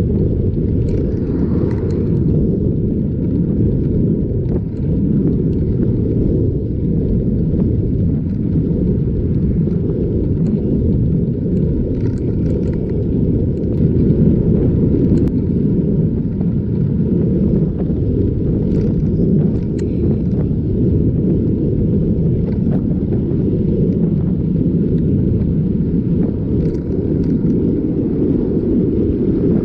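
Steady low rumble of wind buffeting the microphone of a camera on a moving bicycle, with a few faint ticks now and then.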